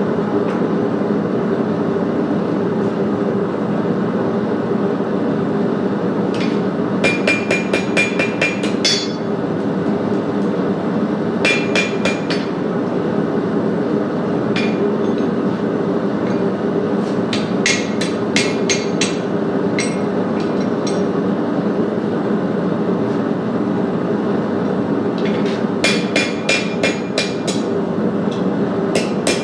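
Blacksmith's hammer striking steel on an anvil in several runs of quick, ringing blows, with pauses between the runs. A steady drone runs underneath.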